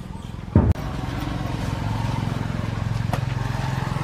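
An engine running steadily, its low hum growing louder after about half a second. A brief low thump about half a second in is the loudest sound.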